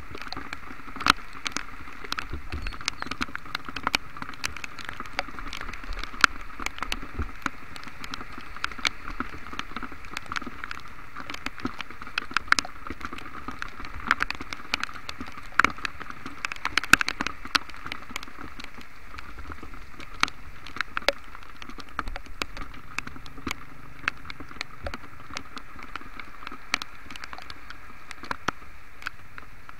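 Heavy rain: a steady hiss of rain on a wet street, with frequent, irregular sharp taps of drops landing close to the microphone.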